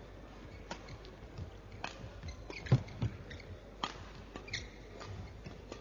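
Badminton rally: rackets hitting the shuttlecock in sharp clicks about every half second to a second, with short shoe squeaks on the court and a heavier thump about halfway through.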